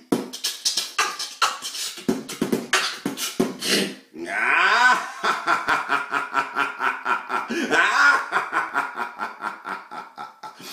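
A man beatboxing: quick, sharp percussive mouth hits for about four seconds, then a sustained buzzing vocal tone pulsed in a steady rhythm.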